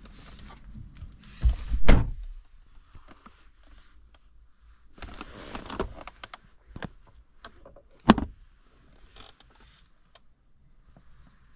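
Audi A4 B6 driver's door pulled shut with a heavy thump about two seconds in. Then rustling and small clicks as the centre armrest lid is lifted and keys are handled, and a sharp clunk about eight seconds in.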